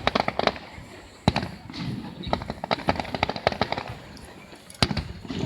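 Fireworks going off: clusters of rapid crackling pops, with a sharper, louder bang about a second in and another near the end.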